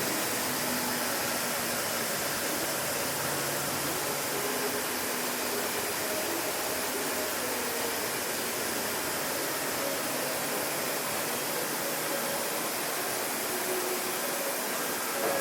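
DMG MORI CLX 350 CNC lathe running with its spindle turning: a steady hiss and whir with faint steady tones, even throughout.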